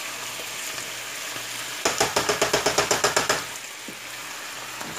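Food sizzling in a frying pan, a steady hiss, with a rapid run of sharp clicks in the pan for about a second and a half starting about two seconds in.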